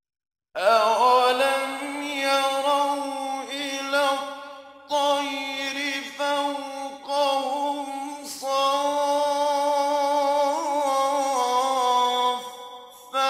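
A solo male voice chanting Quranic recitation in the melodic tajwid style, with long held, ornamented notes and short pauses between phrases. It begins about half a second in, after silence.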